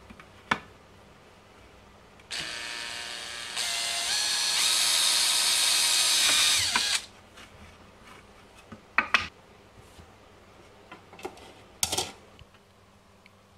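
Cordless drill running for about four and a half seconds as it bores a hole through a perforated circuit board, getting louder in two steps partway through. A few sharp handling knocks come before and after.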